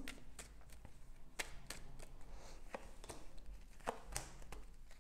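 Tarot cards being handled and drawn from the deck: a series of faint, irregularly spaced clicks and taps as cards slide and snap against each other.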